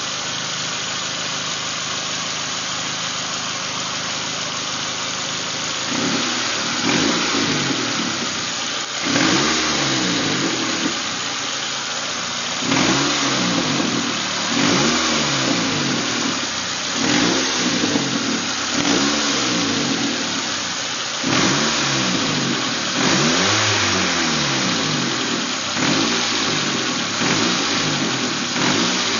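Nissan Primera P11 engine idling steadily, then revved in a string of short throttle blips, one about every two seconds, each rising and falling back to idle. The owner finds the sound of the engine weird.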